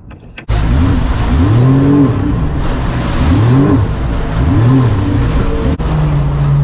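Sea-Doo jet ski engine revving up and back down three times over rushing wind and water noise. It breaks off abruptly near the end, and the engine then holds a steady note.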